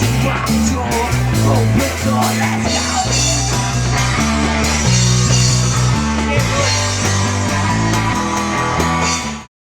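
Rock music with guitar, a stepping bass line and drums, cutting off suddenly near the end.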